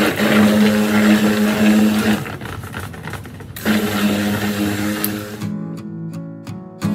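Stick blender running in a pitcher of raw cold-process soap batter, a steady motor hum in two bursts with a short pause between, blending the batter toward trace. About five and a half seconds in, the blender stops and acoustic guitar music starts.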